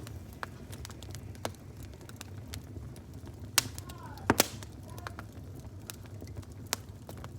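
Wood fire burning with a low steady rumble and scattered sharp crackles and pops, the loudest a quick pair of pops a little past the middle.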